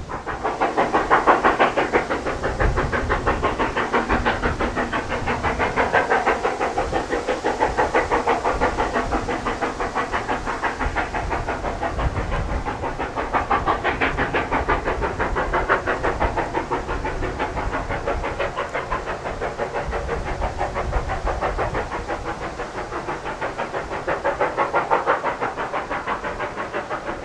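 Narrow-gauge steam locomotive working a freight train, its exhaust chuffing in a quick, even beat that swells and fades a little as it passes.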